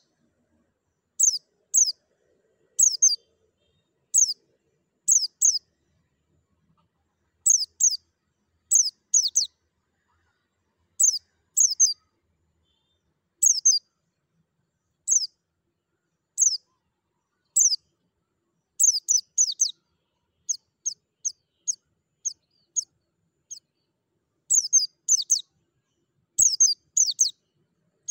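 White-eye (pleci) calling in short, high, downward-slurred chirps, mostly in quick pairs or threes, a group every second or two. In the second half the groups come closer together, and near the end they cluster more densely.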